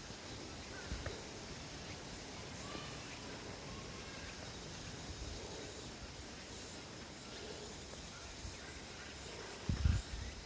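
Mountain forest ambience: insects chirping in a steady pulsing rhythm, with a few faint bird calls. A low thump comes near the end.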